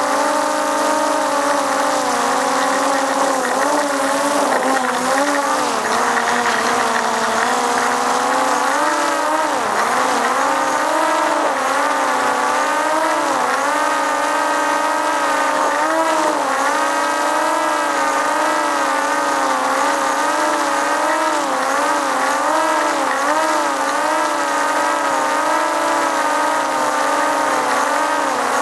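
Multirotor drone's propellers whining steadily, the pitch wavering up and down as the motors adjust their speed.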